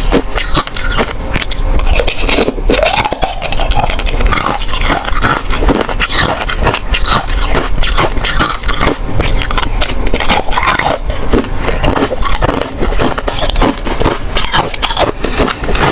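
Close-miked crunching and chewing of ice cubes: a dense run of sharp cracks and crackles as the ice is bitten and ground between the teeth.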